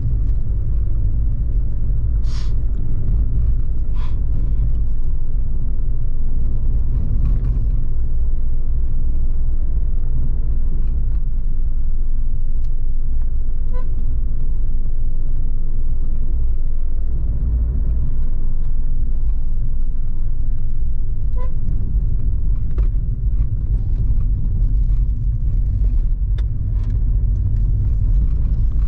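Inside the cabin of a Volkswagen Polo 1.0 TSI on the move: a steady low rumble of its three-cylinder turbo petrol engine and tyres on the road, with a few brief clicks or rattles.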